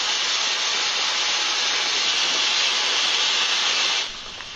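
Steam locomotive venting steam: a steady hiss that cuts off about four seconds in.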